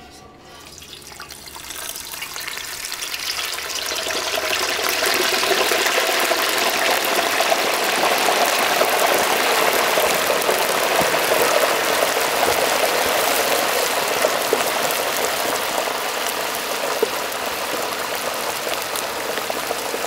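Hot oil in a propane turkey fryer sizzling and bubbling hard as a whole turkey goes in. It builds over the first few seconds into a steady, dense crackle, then eases slightly near the end as the oil begins to settle.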